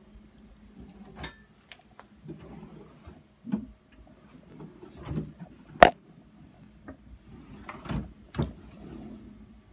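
Wooden kitchen drawers and cabinet doors being opened and shut: a string of separate knocks and clicks, the sharpest about six seconds in.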